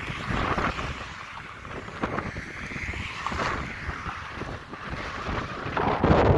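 Gusty thunderstorm wind buffeting a phone's microphone, a rough rumbling rush that rises and falls and gets louder near the end.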